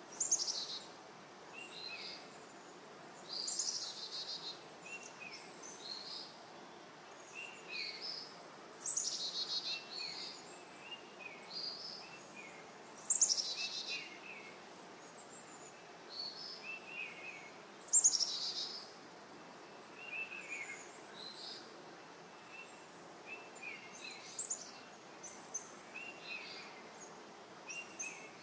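Birds calling in trees: short high chirps repeated throughout, and every four to five seconds a louder, buzzy call that sweeps down in pitch.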